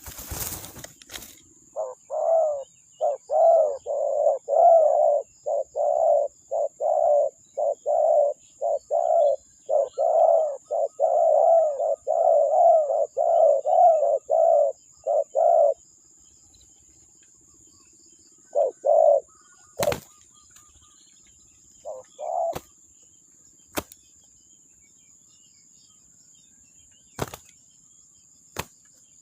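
Spotted dove cooing in a long, fast run of notes for about fourteen seconds, then a few more coos after a pause. Several sharp clicks come in the second half, over a thin, steady high-pitched tone.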